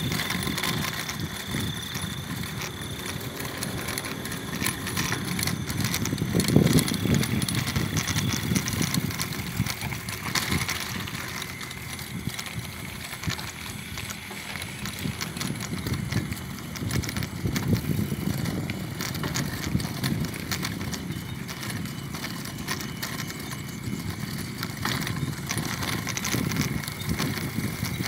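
Bicycle being ridden on a road, heard from a handlebar-mounted camera: a steady rumble of tyres and wind on the microphone that rises and falls, with scattered small clicks and rattles.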